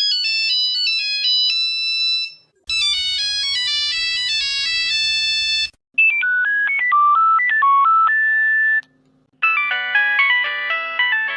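Nokia mobile phone ringtones played one after another: four short electronic melodies, each breaking off after about three seconds, with brief gaps between them about 2.5, 6 and 9 seconds in.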